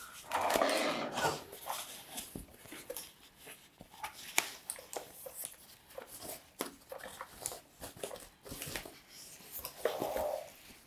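Keyboard packaging being handled: foam inserts and protective wrap rustling and scraping as the keyboard is taken out of its box, with scattered light clicks and knocks.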